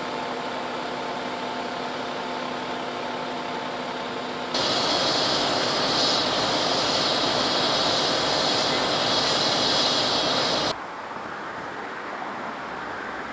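Diesel fire engine running at idle: a steady engine hum, then a much louder, hissing whoosh for about six seconds up close to the truck that cuts off suddenly, leaving quieter outdoor road ambience near the end.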